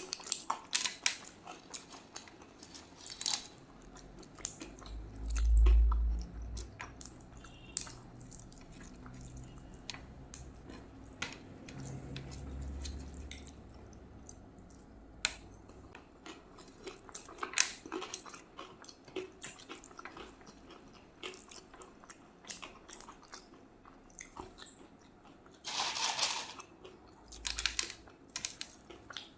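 Close-up chewing and mouth sounds of someone eating rice and curry: many short wet clicks and smacks. Two dull low thumps come in the first half, and a louder crunching rustle comes near the end.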